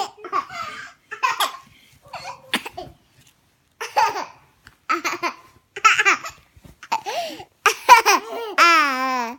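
Baby laughing in short pitched bursts about once a second, ending in a longer call that falls in pitch near the end.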